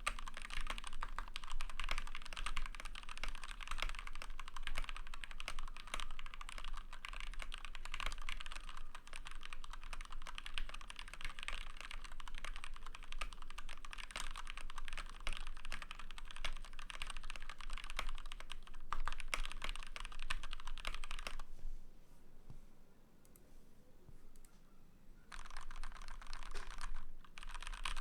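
Fast, continuous typing on a custom GK61 mechanical keyboard with lubed linear Gateron Black switches, a steel plate and PBT doubleshot keycaps: a dense stream of key clacks. It stops for about four seconds near the end, then resumes.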